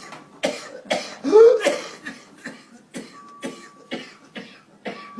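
A person coughing repeatedly in short, sharp bursts, with one louder, voiced cough about a second and a half in.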